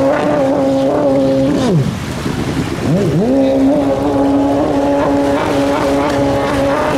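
Stand-up race jet ski engine running at high revs under full throttle. It drops away for about a second around two seconds in as the throttle is let off, then revs back up to a steady high pitch.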